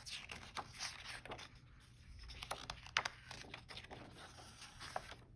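Faint rustling of a hardcover picture book's paper pages being handled and turned, with a few soft ticks from the paper.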